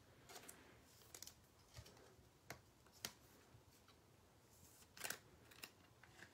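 Near silence: room tone with a few faint, scattered clicks and ticks.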